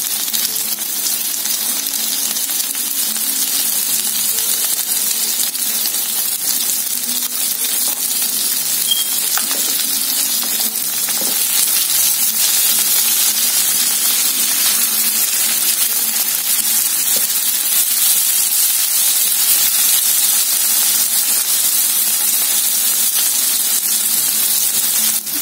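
Cut okra frying in a nonstick pan with a steady sizzle, stirred now and then with a spatula that scrapes and clinks against the pan.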